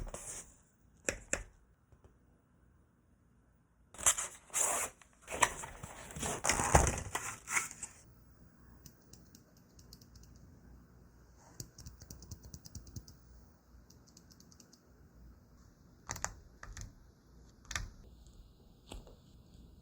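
Typing on a mechanical keyboard fitted with Akko Fairy silent switches: muffled keystrokes in bursts, densest and loudest from about four to eight seconds in, with lighter, softer runs of taps later.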